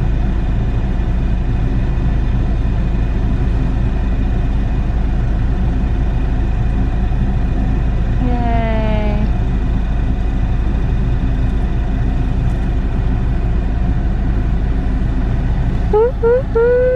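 Steady low rumble of a car in motion, heard from inside the cabin. A short falling vocal sound comes about halfway through, and a voice starts near the end.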